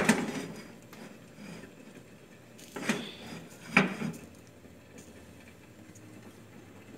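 Nonstick wok handled on a gas stove's metal grate, clunking against it: a sharp knock at the start, then two more about three and four seconds in.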